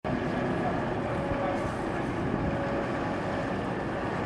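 Sailing ship's engine running steadily as the ship manoeuvres under power, with wind buffeting the microphone.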